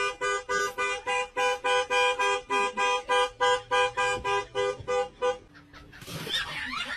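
Car horn with two notes sounding together, beeping in quick short honks about three times a second, stopping about five seconds in.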